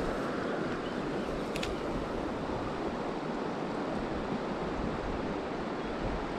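Steady rush of a shallow river flowing over a gravel bed, with wind buffeting the microphone. One brief click about a second and a half in.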